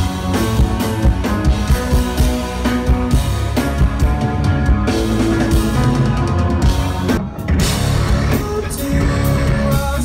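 Live rock band playing loud, with electric bass, guitar and drums, heard from the crowd through a phone's microphone. The music drops out briefly about seven seconds in, then carries on.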